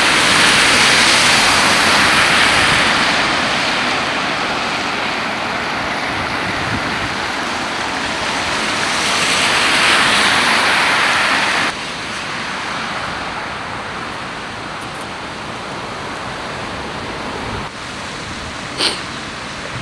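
Cars' tyres swishing through standing floodwater on a road, over a steady rush of water. It is loudest at the start and swells again about ten seconds in, then drops abruptly, with a brief click near the end.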